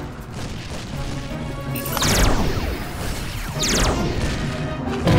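Cartoon ray-gun zaps, each a quick falling sweep in pitch, twice about two seconds apart, over background music with low thumps.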